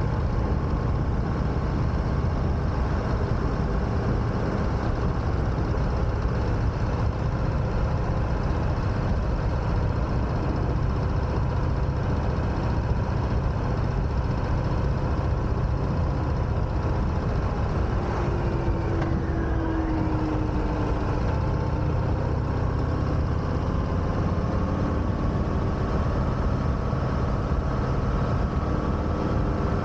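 Harley-Davidson Sport Glide's 107-cubic-inch Milwaukee-Eight V-twin running steadily as the motorcycle rides along at an even speed.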